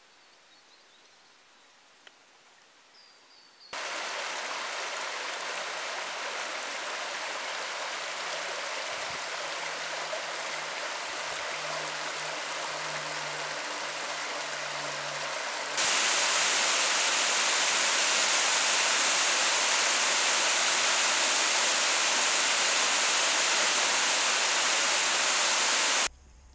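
Faint bush ambience with one brief high chirp. About four seconds in, the sound cuts abruptly to the loud, steady rush of a bush stream. About sixteen seconds in it cuts again to even louder, brighter rushing water, which stops suddenly just before the end.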